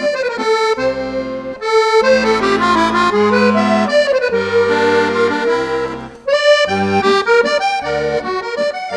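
Instrumental background music: a melody of held notes over bass chords that change every half second or so, with a brief break about six seconds in.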